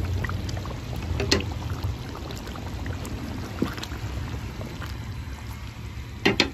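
Chicken kofta curry simmering and bubbling in a pan on a stovetop burner, over a low steady rumble. A few sharp clicks stand out, two close together near the end.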